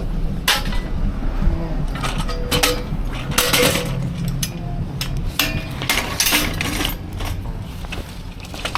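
Metal clinks, clacks and knocks from a folding hand truck being handled, repeated irregularly over a low steady rumble.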